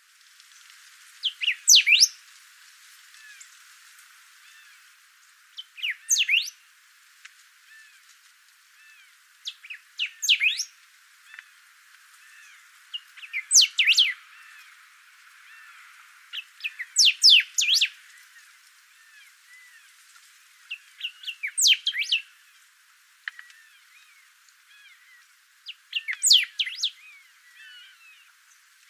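Green-winged saltator (trinca-ferro) singing seven short, loud song phrases about every four seconds, each a quick run of whistled notes. Faint chirping sounds between the phrases.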